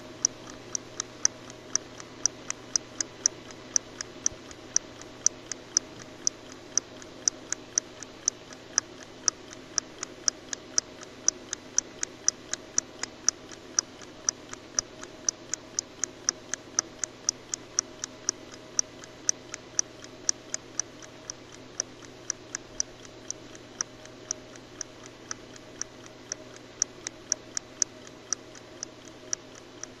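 Clock ticking in a fast, even rhythm over a faint steady hum.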